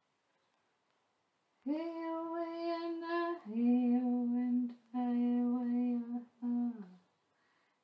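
A woman chanting in long held notes. After a short silence come four sustained notes: the first higher, the next two lower and level, and the last short and sliding down.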